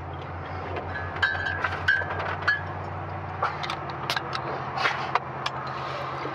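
Car engine running steadily, heard from inside the cabin as a low hum, with scattered short clicks and knocks.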